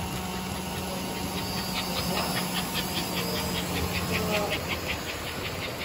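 American Flyer Seaboard operating coal loader's motor humming steadily as it winds the clamshell bucket up on its cables, stopping about four seconds in. A fast, even clicking, about five a second, starts about a second and a half in and runs on after the hum stops.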